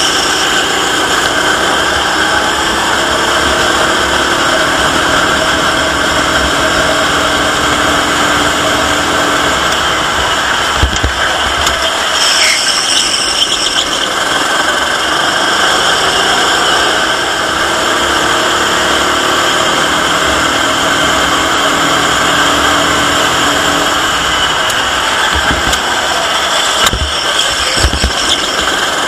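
Racing kart engine heard from an onboard camera at racing speed, its pitch climbing over several seconds as the kart accelerates, twice. A few short low thumps come near the middle and near the end.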